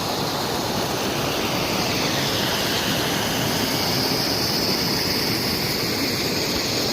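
Dudhsagar Falls, a large waterfall, pouring with a loud, steady rush of water.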